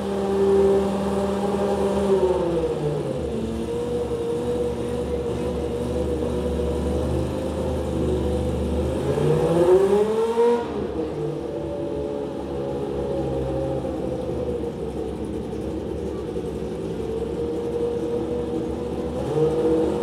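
Toyota TS010's 3.5-litre naturally aspirated V10 running during its warm-up. It is held at raised revs, drops to idle about two seconds in, and one quick throttle blip rises and falls about halfway through before it settles back to idle.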